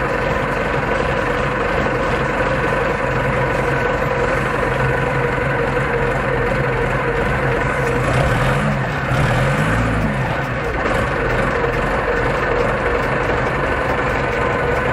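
Compact wheel loader's diesel engine running steadily, heard from the cab. It revs up and back down twice around eight to ten seconds in while the hydraulics lift the boom and bucket.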